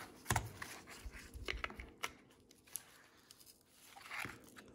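Faint clicks and knocks of an electric pencil sharpener's cutter shaft and 3D-printed plastic gear being handled and slid into the metal gearbox housing. The sharpest knock comes about a third of a second in, a cluster of small clicks follows around one and a half to two seconds, and another knock comes near the end.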